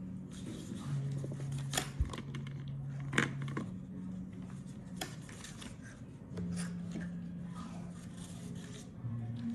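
Sticker sheets and notebook paper being handled on a desk: crisp rustling and crinkling with a few sharp clicks and taps. A low steady tone sits underneath, shifting pitch a few times.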